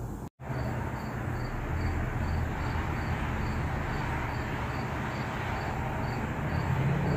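Garage room tone: a steady low hum and hiss, with a faint high chirp repeating evenly about twice a second. The sound cuts out for an instant just after the start.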